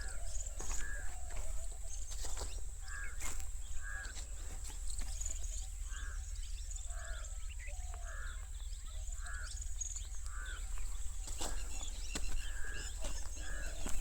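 A bird calling over and over in short calls, about one or two a second, with scattered sharp clicks and a steady high thin tone underneath.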